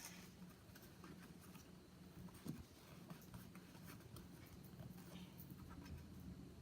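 Near silence: faint rustling and small ticks of cardstock being folded and handled, over a low room hum.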